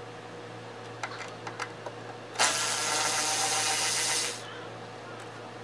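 A few light metallic clicks as a socket is fitted onto a nut on the wiper linkage mounting, then a power driver runs the socket for about two seconds, starting and stopping abruptly, to undo the fastener.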